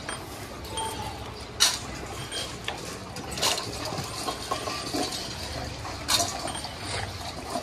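Stainless-steel dog bowls clinking on a tiled floor as several dogs eat dry kibble from them, with a few sharp clanks, the loudest about one and a half seconds in.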